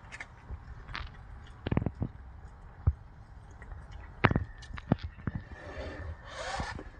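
A cat biting and chewing through a pigeon carcass: irregular sharp crunches and clicks of bone and feathers, with a short rustling noise near the end.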